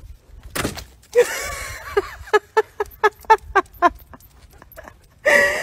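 A woman laughing: a drawn-out first 'ha', then a quick run of short 'ha' bursts about four a second, with another voiced sound near the end.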